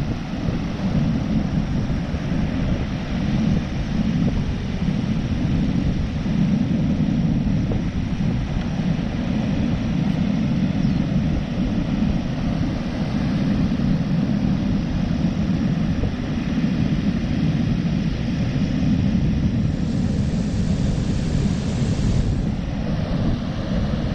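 Steady wind buffeting the microphone over the wash of surf, a dense rumbling hiss with no let-up. About twenty seconds in, a brighter hiss swells for a couple of seconds.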